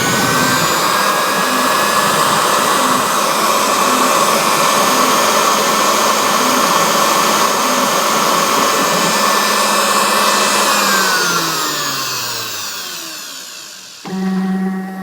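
Ozito router spindle on a DIY CNC router running at full speed with a steady high whine, then switched off and spinning down, its pitch falling over about two seconds. Near the end a lower, steady electric hum starts.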